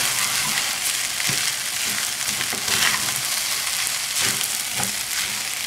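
Fried rice with egg and vegetables sizzling steadily in a hot stainless steel skillet as it is stir-fried with a wooden spatula, with a few short scrapes of the spatula against the pan.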